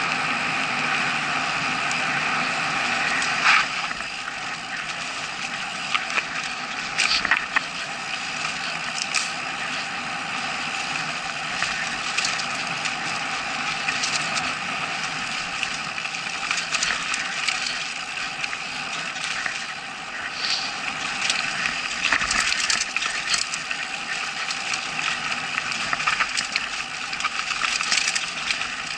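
Mountain bike rolling fast down a dirt forest trail: steady tyre and riding noise with frequent sharp rattles and knocks from the bike as it goes over bumps and roots.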